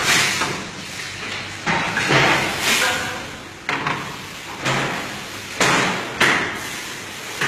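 A series of sharp knocks and clatters, about one a second, each trailing off with a short ringing tail.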